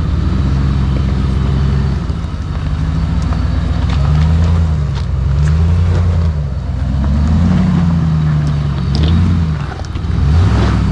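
The engine of a built 2010 Dodge Ram 1500 pickup revving up and down in repeated throttle blips as it crawls over rocks, with a few short knocks from the truck working over the ledge.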